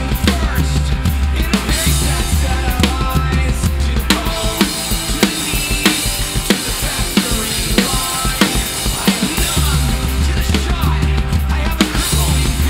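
Rock drum kit played hard with sticks, kick, snare and cymbals, along to a recorded pop-punk backing track.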